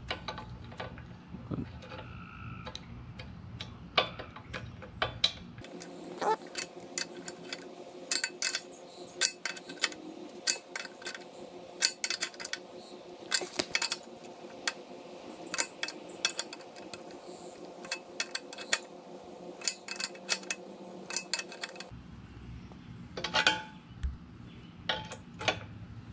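Adjustable steel wrench clicking and clinking against a brass drain valve as it is turned tight into the compressor tank, in irregular sharp metallic taps.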